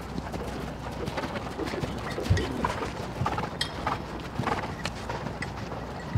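Horses' hooves thudding irregularly as a group of hunters canters around the ring.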